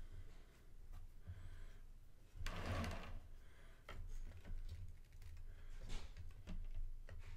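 Faint clicks and taps of a collectible statue being handled and fitted onto its base, with a brief louder rustle about two and a half seconds in.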